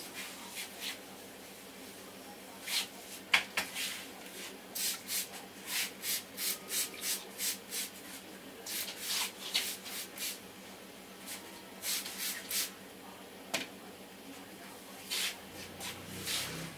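A barber's hands rubbing and patting a person's head and hair in an Indian head massage: a string of short, brushing strokes, about two a second in runs, with pauses between. A sharp click a little over three seconds in is the loudest sound.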